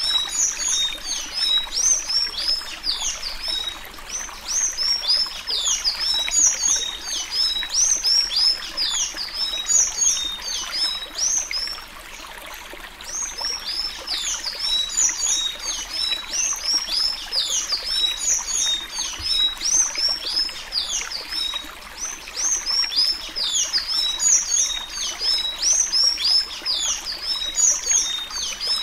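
Sanhaço (Thraupis tanager) singing the Alagoas 'suí suí' song type: long runs of rapid, high, squeaky down-slurred notes, with a short break about twelve seconds in and another near twenty-one seconds.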